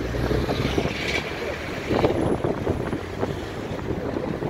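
Outdoor street ambience: wind buffeting the microphone, with a low rumble in the first second, over the noise of nearby traffic.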